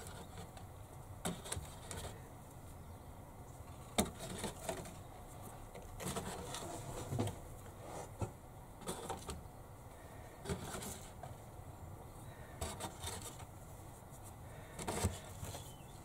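Seed potatoes being set one by one into the cells of a black plastic module tray for chitting: irregular light knocks of potato on plastic every second or two, with rustling of handling in between, the sharpest knock about 4 seconds in.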